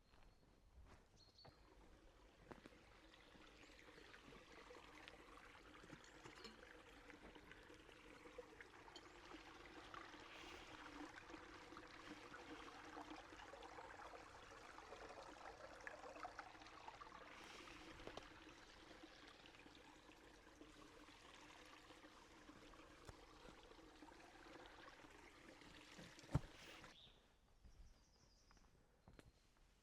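Faint rushing, trickling water sound that slowly swells and fades away, ending with a single sharp click near the end.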